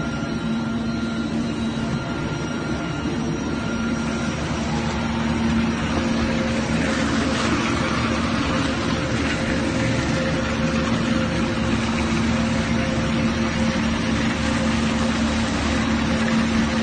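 Factory machinery running with a steady drone: a constant hum under a rushing hiss that grows a little louder about five seconds in.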